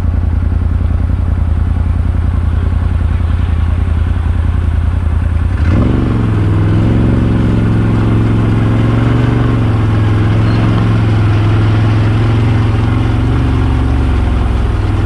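Can-Am Maverick side-by-side's engine running as it drives along a dirt trail. About six seconds in the engine sound changes suddenly, from a low pulsing drone to a steadier, slightly higher hum.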